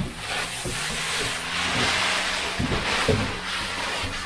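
Steady wind blowing over the microphone, with a few dull knocks.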